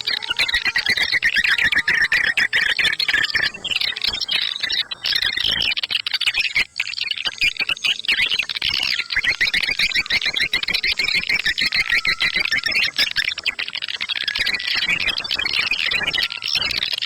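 Swiftlet call lure track: a dense, unbroken chatter of rapid high chirps and twitters, with a brief thinning about five to seven seconds in.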